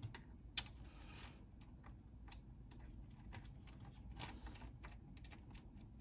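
Scattered light clicks and taps of a screwdriver and small parts against the plastic case of an opened Amstrad CPC464, irregular and faint, with the sharpest click about half a second in.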